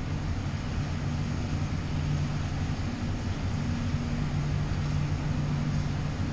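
Aquarium pumps and filtration humming steadily, heard by a camera submerged in the tank: a low hum with a couple of steady tones under a faint hiss.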